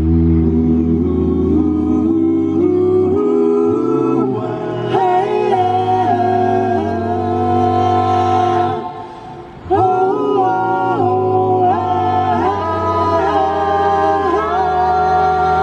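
Six-voice a cappella group singing an old jazz standard in close harmony, with sustained chords over a low vocal bass line. The voices break off briefly about nine seconds in, then come back in together.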